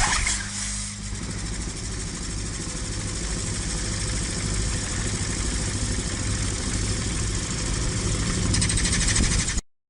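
A machine running steadily with a low, engine-like hum and a louder swell right at the start.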